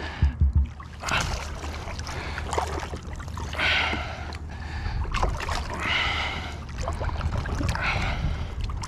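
Water sloshing and splashing in short rushes every second or two as a large black drum is held by the tail and pushed back and forth beside a kayak to revive it. A steady low hum runs underneath, with a few knocks near the start.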